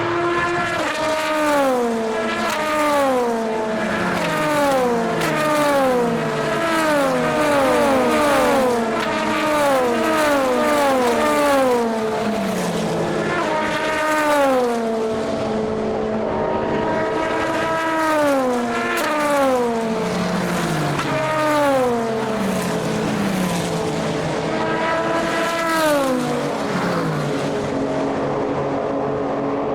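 Endurance prototype and GT race cars passing one after another at full speed, each engine note dropping in pitch as it goes by. The cars come in a close train for the first dozen seconds, then pass singly every couple of seconds.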